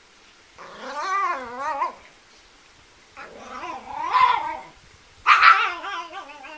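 A small dog's play-growling while wrestling: three drawn-out, warbling growl-whines, each a second or two long, with the last the loudest.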